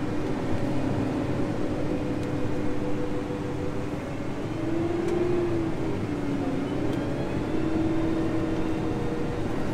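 Case IH Magnum 380 Rowtrac tractor's six-cylinder diesel engine running steadily under light load as the tractor drives slowly, heard from inside the cab. Its pitch rises briefly about five seconds in and again near eight seconds.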